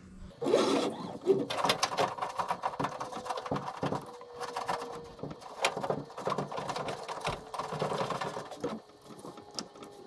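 Plastic 10x10 mm drag chain links clicking and rattling as the K40 laser head and its carriage are pushed back and forth by hand along the gantry rails, the chain flexing as it follows. The rapid clatter starts about half a second in and keeps on, falling away near the end.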